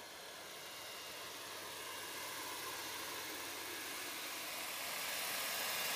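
Radio-controlled scale 500E model helicopter in flight, coming closer: a steady rushing noise, mostly high-pitched, growing louder throughout.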